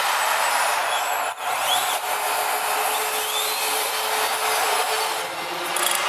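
Electric drive and hydraulics of a radio-controlled Liebherr 566 wheel loader model working, a steady mechanical whirring and grinding with a couple of short rising whines. There is a brief drop about a second and a half in.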